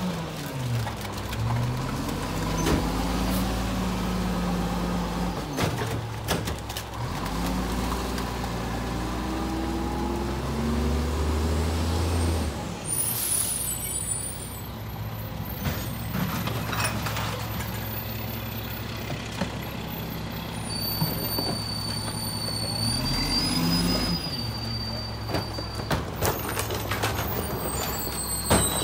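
Mack MR rear-loader garbage truck's diesel engine running, speeding up and slowing several times as the rear packer cycles and the truck moves up to the next stop. A loud air-brake hiss comes about 13 seconds in, a thin high squeal a little past 20 seconds, and more air hissing near the end.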